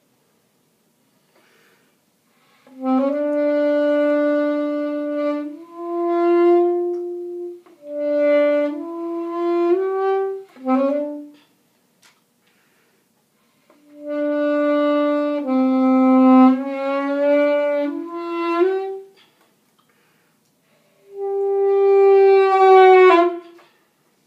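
Unaccompanied alto saxophone playing slow phrases of long held notes that step and slide between pitches, separated by silences. The last phrase ends with a bend down in pitch.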